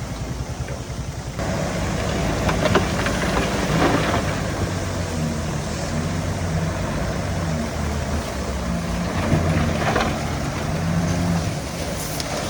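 Heavy diesel engine of earthmoving machinery running steadily, growing louder about a second and a half in, with a few short knocks along the way.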